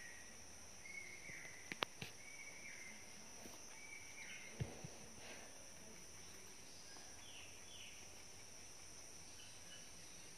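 Quiet background with a steady high-pitched hiss, a few short high chirps in the first four seconds, and a handful of sharp clicks in a cluster about two seconds in and again near five seconds.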